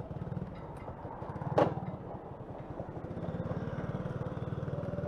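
Honda Genio scooter's small single-cylinder engine idling at a standstill, with one sharp click about a second and a half in.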